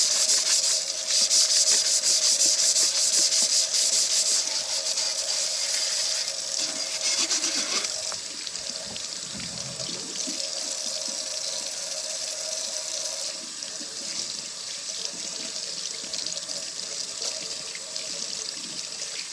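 A tumbler being wet-sanded by hand with 100-grit sandpaper in quick, rhythmic back-and-forth strokes. After a few seconds the sanding stops and tap water runs steadily into a sink.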